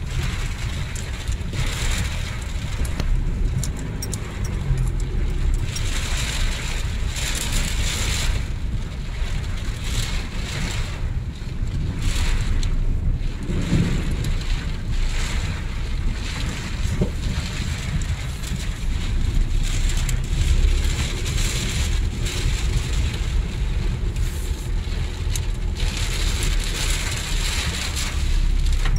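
Car driving through deep floodwater in heavy rain, heard from inside the cabin: a steady low rumble under a rushing hiss of water and rain that swells and fades every few seconds.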